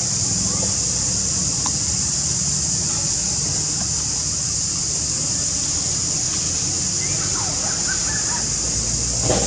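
Steady high-pitched drone of an insect chorus over a low rumble, with a few faint high chirps about three-quarters of the way through.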